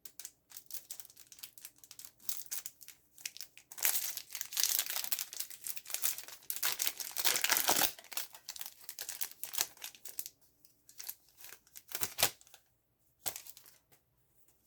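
Foil Yu-Gi-Oh booster pack wrapper crinkling and being torn open, thickest in the middle, with scattered crinkles either side.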